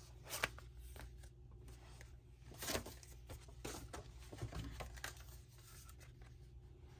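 Paper cards being handled: a few brief rustles and taps of cardstock, the loudest about two and a half seconds in, as one pop-up card is put away and the next is picked up.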